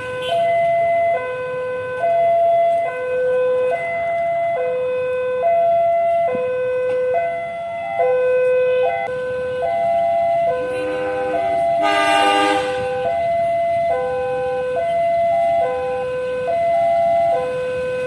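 Railway level-crossing warning siren sounding as the crossing closes for a train: a loud two-tone hi-lo alarm alternating evenly, each note just under a second. Partway through, a brief chord-like horn blast overlaps it for about two seconds, the approaching diesel locomotive's horn.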